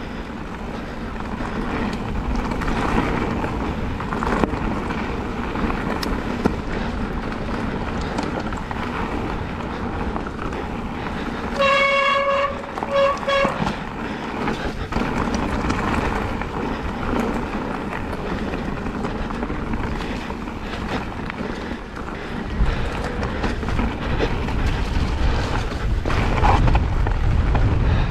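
Helmet-camera ride noise of a Specialized Turbo Levo e-mountain bike on a forest trail: a steady rush of tyre and wind noise that grows heavier in the low end near the end. About twelve seconds in, a honking tone sounds once for nearly a second, then twice briefly.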